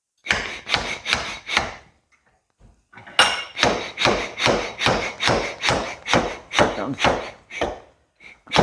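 Repeated hammer blows on a John Deere Model 7 backhoe stabilizer cylinder, knocking the gland out of the barrel after the snap ring is removed. Four strikes, a short pause, then about a dozen more at a steady two to three a second, with a last blow near the end as the gland comes free.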